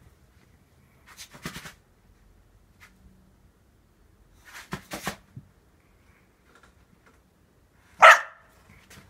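Dog barking once, short and loud, about eight seconds in, after a few quieter short bursts of sound earlier.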